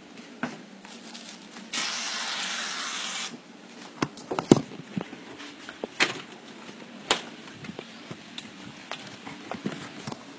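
A hiss lasting about a second and a half, like a spray, followed by a few sharp knocks and clicks.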